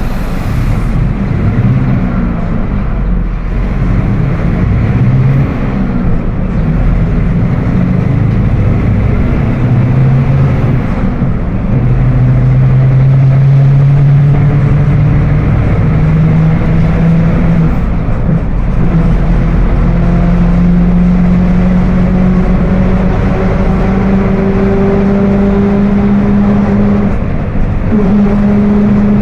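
Mercedes-Benz OF 1721 BlueTec 5 bus under way. Its rear differential is growling with a whine that climbs steadily in pitch as the bus gathers speed, over the engine and road noise. This is the sign of a faulty rear axle.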